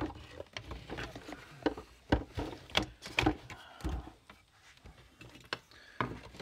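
Irregular clicks, knocks and scrapes of an electric fence charger's plastic case and solar panel being handled and shifted on a workbench, a little quieter for a second or so past the middle.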